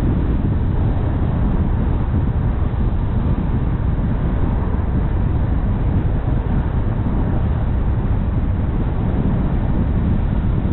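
Steady low rumble of a car driving along the road, mostly tyre and wind noise, with no clear engine note or distinct event.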